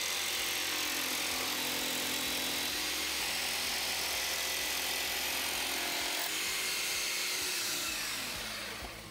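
Rockwell BladeRunner X2 tabletop saw, its reciprocating T-shank jigsaw blade rip-cutting a hardwood flooring board, together with a shop vacuum running on the saw's dust hose. The steady machine noise eases off near the end.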